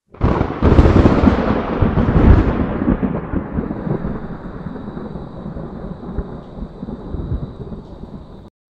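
Thunder sound effect: a sudden loud crack just after the start that rolls on as a rumble and slowly fades. A faint steady high tone joins about three and a half seconds in, and everything cuts off abruptly near the end.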